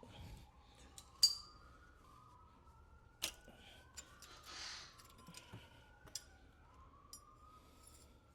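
A few sharp clinks and clicks of hand tools being handled, the loudest about a second in, with a short hiss midway. Underneath, a siren wails faintly, its pitch sliding slowly up and down.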